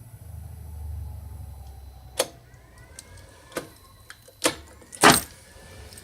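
A no-start attempt on a Polaris Slingshot: a low hum swells and fades over the first two seconds, then four sharp clicks, the last the loudest.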